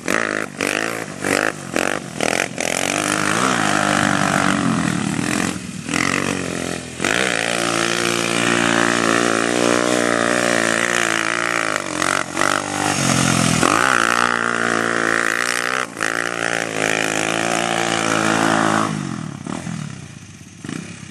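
ATV engine revving hard and easing off over and over as the quad is drifted, its pitch swinging up and down, with stuttering breaks in the first couple of seconds. The engine fades away near the end.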